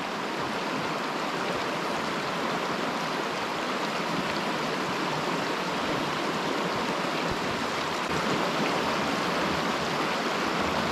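Fast-flowing river water rushing in a steady, even wash of noise.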